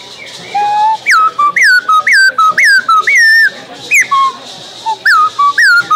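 A whistled call, presented as a Pataxó "hymn": a run of short, loud notes, each sliding sharply down in pitch, about two a second, starting about a second in after a single faint lower note.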